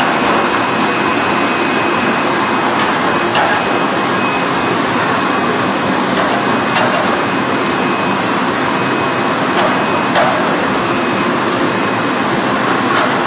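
Chocolate depositor and biscuit conveyor line running: a loud, steady machine noise with a faint high whine, and a light click about every three and a half seconds.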